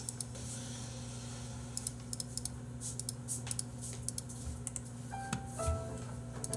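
Typing on a computer keyboard: irregular, scattered key clicks. About five seconds in, soft background music with a simple note-by-note melody comes in.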